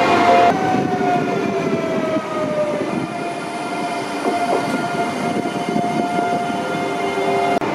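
Electric double-deck regional train moving past close by, its traction equipment giving a high whine over the rumble of the cars. The whine slides down in pitch over about two seconds, then holds steady.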